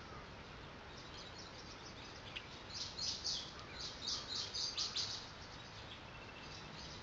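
Faint steady outdoor ambience, with a quick run of high bird chirps in the middle.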